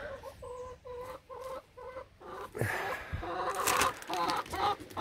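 Domestic hens clucking: a run of short, even clucks about two or three a second in the first two seconds, then louder, more varied clucking in the second half.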